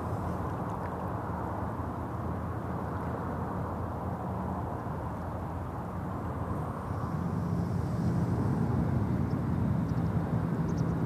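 Lakeshore ambience: a steady low rumble of road traffic from a nearby road blended with gentle water at the pebble shore. A vehicle grows louder about seven seconds in.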